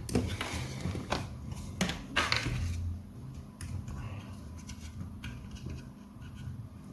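A few sharp clicks and knocks in the first three seconds, then lighter ticks, over a low steady hum.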